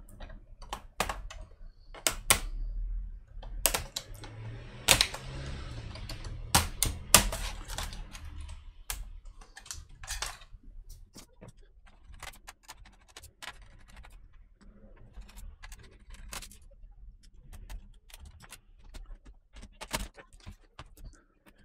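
Plastic clicks and snaps as a Dell Inspiron 15 3000 laptop keyboard is pried out of its palm rest, with keys clattering. About four to eight seconds in there is a stretch of scraping and rustling.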